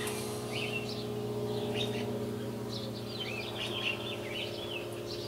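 Small songbirds chirping outdoors: a scatter of short, quick chirps, busiest about three to four seconds in, over a steady low hum.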